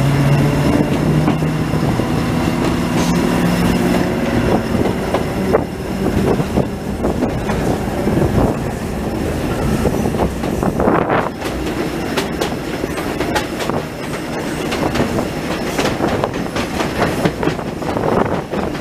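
Passenger train running over the tracks. A steady rumble carries irregular clicks of wheels clattering over rail joints and points, and a low whine falls in pitch and fades over the first few seconds.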